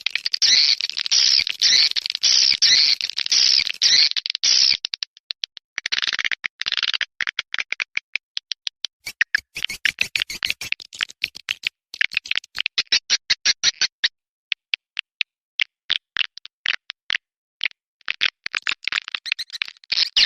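Swiftlet calls: dense, fast twittering chirps, giving way after about five seconds to trains of sharp clicks in quick runs, with the twittering returning near the end.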